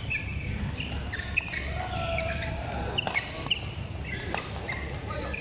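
Badminton rally: a few sharp racket strikes on the shuttlecock, with sports shoes squeaking in short chirps on the court mat.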